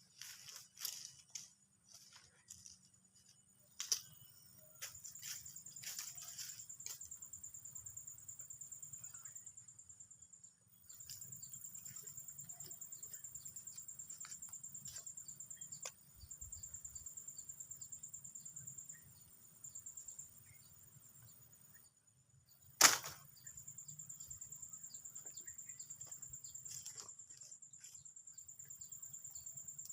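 Insects, crickets or cicadas, trilling in a high, fast-pulsing buzz that runs in long stretches and stops and restarts several times. Small scattered clicks sound throughout, with one sharp, loud click a little over two-thirds of the way in.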